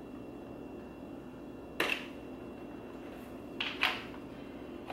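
Sharp little plastic clicks, one about two seconds in and a quick pair near the end, as a hook tool works at the locking tab of an upside-down electrical connector under a C8 Corvette's center console. A faint steady hum sits underneath.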